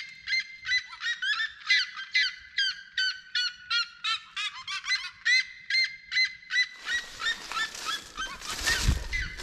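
A pair of red-legged seriemas calling in duet: a fast series of loud, pitched calls, about two to three a second. From about seven seconds in, a rushing noise joins them.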